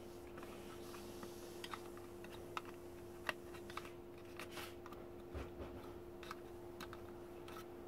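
Scattered light plastic clicks and taps from the housing of a BMW park distance control module as its side tabs are pressed to free the circuit board inside, over a faint steady hum.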